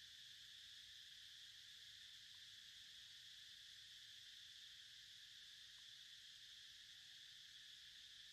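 Faint steady insect chorus, an even hiss-like drone with no breaks, at near-silent level.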